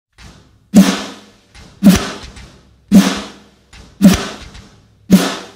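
Music: a rock song's drum intro, five heavy drum hits with crashing cymbals about once a second, each led by a lighter hit just before it.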